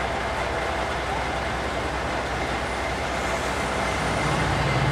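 City street traffic: a steady wash of traffic noise with a low hum, swelling near the end as a low engine drone grows louder.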